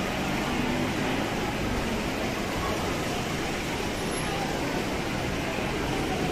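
Steady rumble of vehicle traffic and running engines, an even noise with no clear breaks or distinct events.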